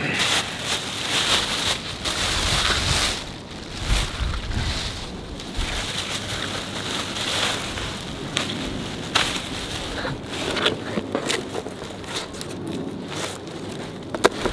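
Black plastic bin bags rustling and crinkling as they are handled, with many short crackles.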